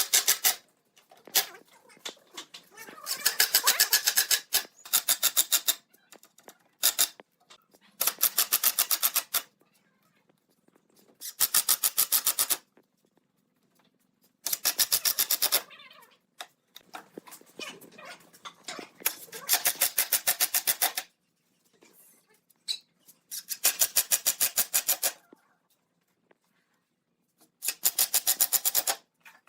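Power tool running in repeated short bursts, each a fast, even rattle of clicks lasting one to two seconds, about eight times with short pauses between.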